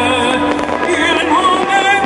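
Loud music with a singer holding wavering notes.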